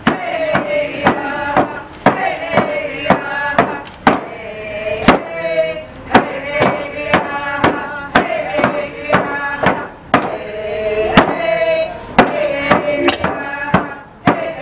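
Music: a wavering sung or melodic line over sharp, regular percussive knocks, about two a second.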